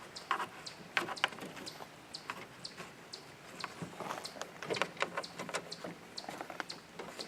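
Irregular light clicks and taps from hand work on the hood latch's fasteners and parts, as they are turned out and handled.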